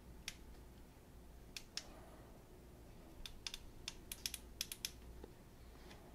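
A scattered series of light, sharp clicks from small plastic parts being handled: a few single clicks in the first two seconds, then a quick cluster of about ten between three and five seconds in.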